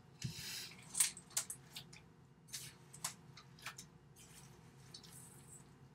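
A spatula stirring thick, chunky cookie dough in a mixing bowl: faint, irregular scrapes, clicks and squishes, a little louder in the first seconds.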